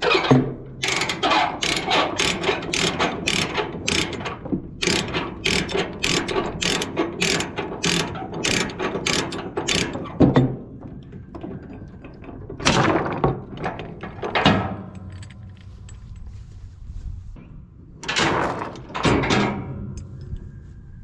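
Ratchet chain binder being cranked loose, its pawl clicking in a steady run of about three clicks a second for some ten seconds. Later come a few louder, noisier rattling bursts.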